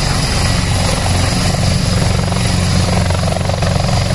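Military helicopter running with its main rotor turning: a steady, rapid blade chop over a low drone, with a faint high turbine whine.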